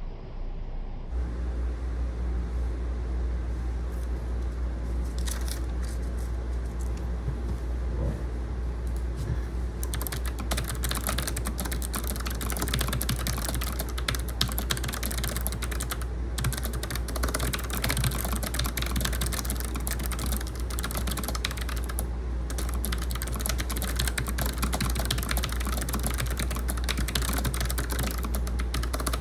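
Fast, continuous typing on a Logitech MX Mechanical keyboard with its low-profile clicky switches, starting about ten seconds in after a few scattered keypresses. A steady air-conditioner hum runs underneath.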